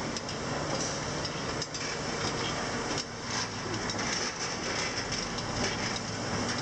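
Rotary drying tube of a fertilizer drying line running: a steady mechanical noise with a low hum and frequent light knocks and rattles.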